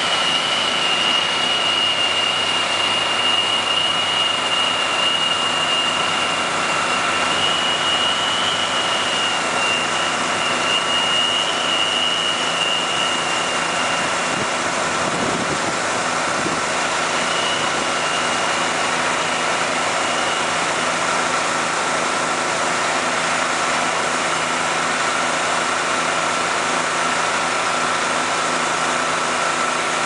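Heavy farm machinery running steadily: the diesel engines of a New Holland 9682 four-wheel-drive tractor and a Claas Lexion 750 combine harvester at work in wheat. A steady whine runs throughout, and a higher whine fades out about halfway through.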